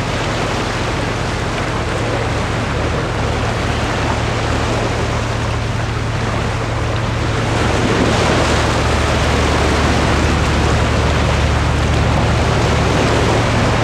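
Wind buffeting the microphone and sea waves washing against a rocky shore: a steady rushing that grows a little louder about eight seconds in, over a steady low hum.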